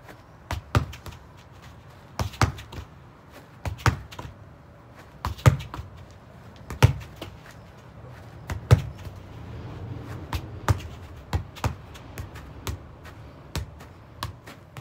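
Football being struck with the foot and stopped again in a hit-and-stop drill: a run of sharp thuds, about one every second and a half at first, then quicker, about one every 0.7 s, from about ten seconds in.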